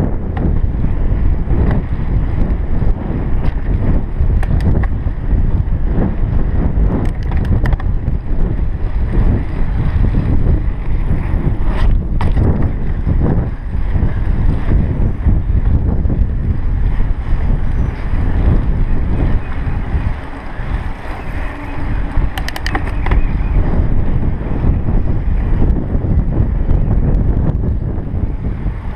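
Wind buffeting the microphone of a chest-mounted GoPro camera during a bicycle ride, mixed with tyre rumble on pavement. A few brief clicks or rattles from the bike stand out, notably around the middle and again a little later, and the wind eases briefly in the later part.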